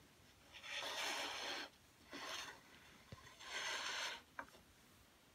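Pine runner strips slid by hand along a DeWalt table saw's top and miter slot, wood scraping on metal in three strokes, the first and last about a second long. A light tick or two follows near the end.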